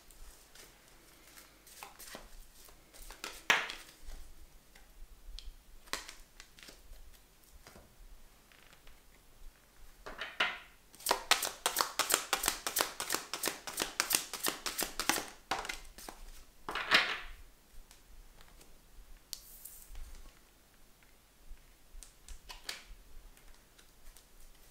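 A deck of cards being shuffled by hand: a rapid run of flicks for about four seconds in the middle, with scattered taps of card handling before it and a sharper slap, a card put down on the table, just after.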